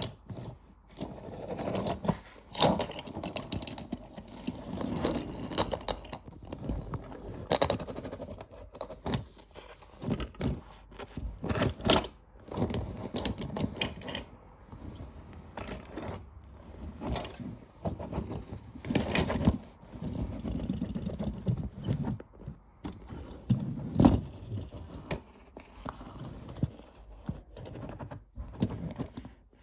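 Diecast metal toy cars being handled and rolled on a hard surface, scraping, rattling and clicking in uneven bursts with sharp knocks here and there.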